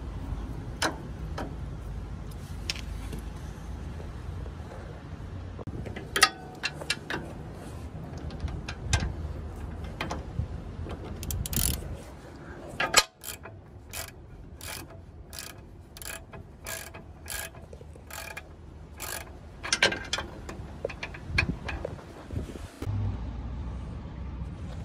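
Ratchet wrench clicking as a sway bar end link nut is run down, in a steady run of about two clicks a second for several seconds through the middle. Before it come scattered metal clinks of the socket being fitted and the tools being handled.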